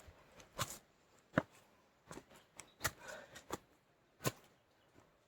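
Footsteps on a steep uphill trail: a series of short, irregular scuffs and taps, roughly one every three-quarters of a second, with near quiet between them.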